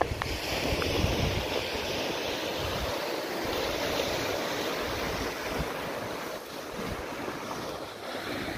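Small sea waves washing and breaking against a rocky shore, a steady surf hiss, with gusts of wind rumbling on the microphone, strongest near the start.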